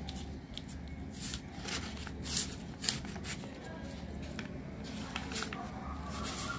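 A sheet of paper being folded and creased by hand, short rustles and swishes at irregular moments, several in the first half and another near the end.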